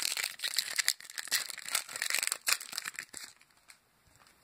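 Foil wrapper of a trading-card pack crinkling and tearing as it is ripped open by hand, a dense crackle that stops a little over three seconds in.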